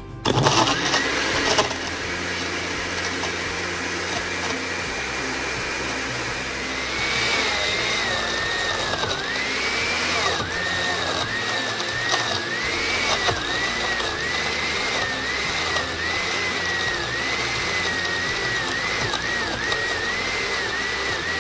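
Countertop blender switched on, crushing ice cubes with frozen mango and melon: a loud clatter for the first second or two, then the motor runs steadily, its whine wavering up and down in pitch from about seven seconds in.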